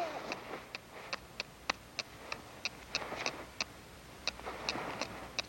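A run of short, sharp clicks at about three or four a second, slightly uneven in spacing, over a faint steady hiss.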